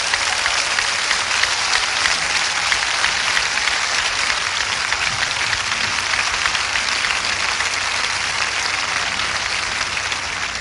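A large audience applauding: steady, dense clapping that eases off a little near the end.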